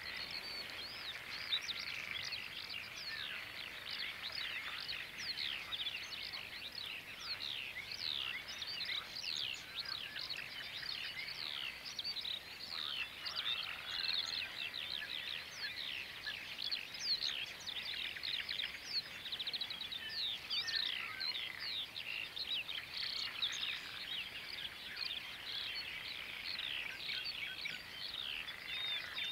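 Dawn chorus: many birds singing at once in a dense, continuous tangle of short chirps and whistles, with a brief fast trill about two-thirds of the way through.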